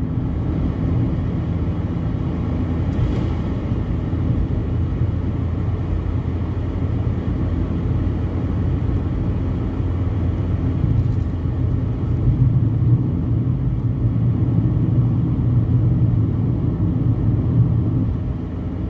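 Steady low rumble of a car driving at road speed, heard from inside the cabin: engine and tyre noise on the highway, a little louder for a few seconds past the middle.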